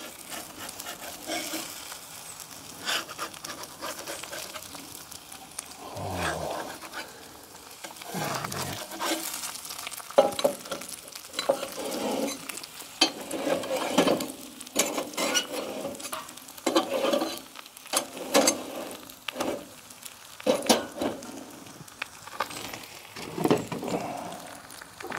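Eggs frying in a cast-iron griddle pan: a steady sizzle with frequent sharp pops and crackles of spattering fat.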